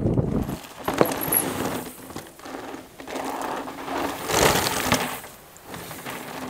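Atherton AM200 mountain bike running fast down a loose stony trail: tyres crunching over gravel, with sharp clicks and rattles from the bike and louder surges as it hits rough patches. A deep wind rumble on the microphone cuts off about half a second in.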